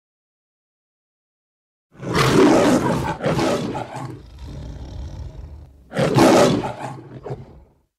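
Two loud animal roars, one about two seconds in and another about four seconds later, each lasting a second or two.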